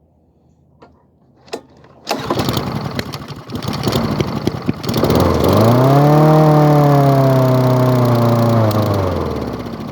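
Honda lawn mower engine catching about two seconds in on fuel squirted into the carburetor, running rough, then racing up to a high speed and holding there for several seconds before the pitch drops near the end. It runs too high because the carburetor is faulty and the throttle isn't working.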